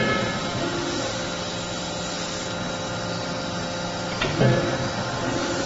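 Steady hum of a CNC fully hydraulic closed-die forging hammer's hydraulic system, with one heavy hammer blow on the die about four seconds in.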